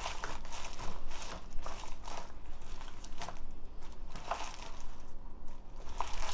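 Rubber-gloved hands rubbing thick, wet chili seasoning paste into bunches of green onions in a plastic bowl: irregular squishing and rustling strokes as the stalks are turned and coated.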